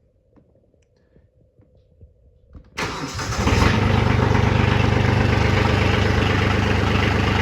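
Kubota B2601 compact tractor's diesel engine starting after a few faint clicks: a brief crank about three seconds in, then it catches and settles into a steady idle.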